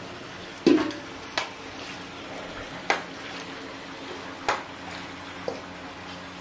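Metal ladles and tongs clanking against the rim of a large metal cooking pot as the broth is stirred and meat is lifted out. There are five sharp knocks at uneven intervals, and the first is the loudest.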